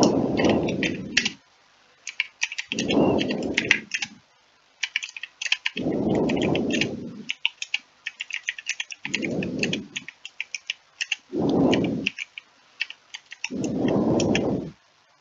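Typing on a computer keyboard: a run of quick key clicks, with a low rumble about a second long recurring every two to three seconds.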